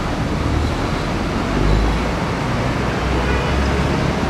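Heavy bus engines rumbling amid steady traffic noise, with a deeper swell of rumble about one and a half seconds in.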